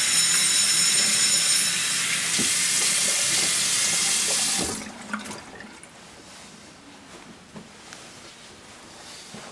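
Tap running into a bathroom sink as hands are washed, a steady rush of water that shuts off suddenly about five seconds in. A phone's ringtone carries on under the water for the first couple of seconds, and faint small clicks and rustles follow the water stopping.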